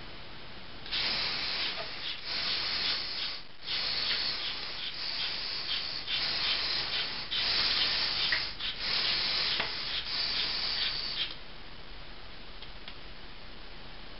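LEGO Mindstorms EV3 motors running in several stretches with short pauses, a grinding hiss of plastic gears as they work the puppet's strings. It starts about a second in and stops about three seconds before the end.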